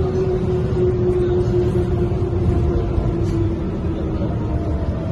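Mercedes-Benz O405N2 city bus with a ZF Ecomat automatic gearbox, heard from inside while under way: a deep engine and road rumble with a whine that slowly falls in pitch as the bus eases off.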